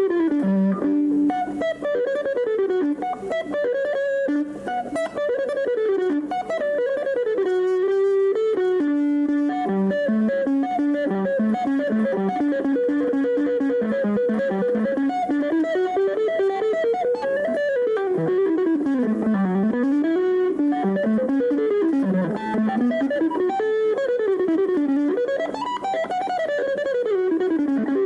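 Solo electric guitar playing continuous fast runs of notes that sweep up and down in pitch, broken by a couple of briefly held notes about eight to nine seconds in.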